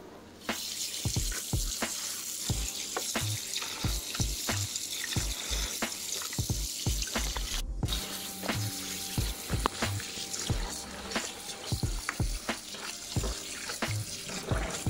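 Kitchen tap running into a plastic basin of raw duck pieces in a sink, the water splashing as hands rub and rinse the meat. The tap comes on about half a second in. Background music with a steady beat plays underneath.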